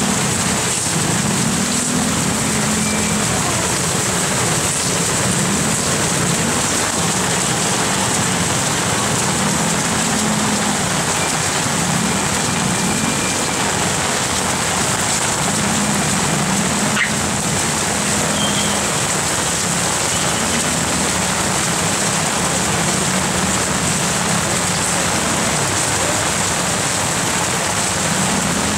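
Heavy rain falling steadily, an even, dense hiss.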